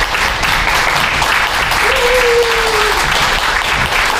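A small seated audience applauding, steady dense clapping. About two seconds in, a single voice calls out over it for about a second, falling slightly in pitch.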